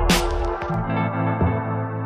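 Background electronic music: a cymbal crash just at the start, then the beat drops out about half a second in, leaving held synth chords that slowly fade.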